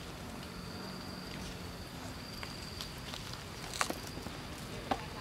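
Outdoor ambience of a steady high-pitched insect drone, with a few sharp clicks about four and five seconds in.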